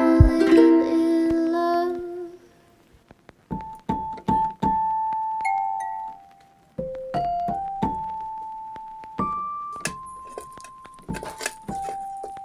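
Background music: a few chords that stop about two seconds in, then after a short pause a slow melody of single keyboard notes, each ringing out and fading.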